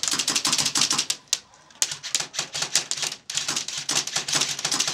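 Airsoft guns firing in rapid bursts: quick runs of sharp clicks broken by short pauses.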